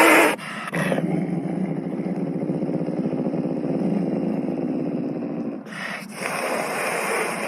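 A wild cat's low, rough rumbling vocalisation with a rapid pulsing texture, and a louder, harsher call about six seconds in.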